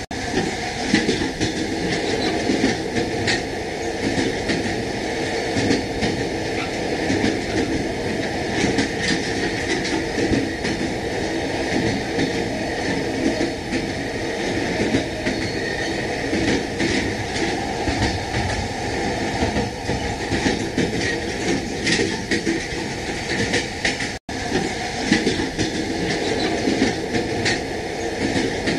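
Moving train: a steady rumble of the wheels on the track with irregular clacks as the wheels pass over rail joints. The sound cuts out for an instant near the end.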